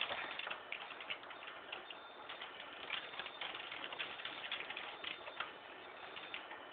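Irregular light clicks and ticks, several a second and uneven in spacing, over a steady hiss.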